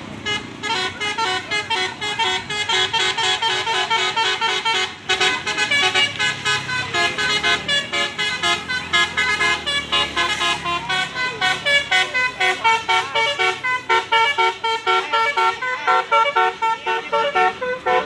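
Basuri musical bus horn playing a fast tune of short, rapid-fire notes, repeating the melody over and over, with a low engine rumble underneath.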